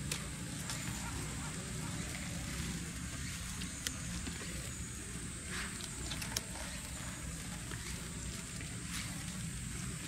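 Steady low rumble under a faint high hiss, with scattered small clicks and rustles as a young sika deer nibbles at a deer cracker held out among cypress branches.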